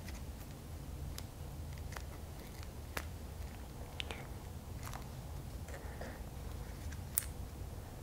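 Handling noise of a tire plug insertion tool as a tacky rubber repair plug is threaded through its eye: scattered light clicks and rubbing about once a second, the sharpest near the end, over a low steady hum.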